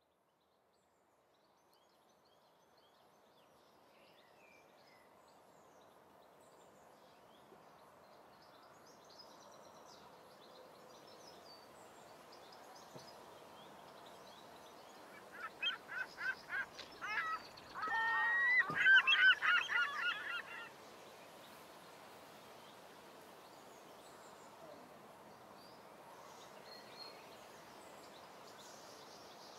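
Faint outdoor ambience with a few distant bird chirps, then a run of loud, repeated bird calls about halfway through, lasting some five seconds.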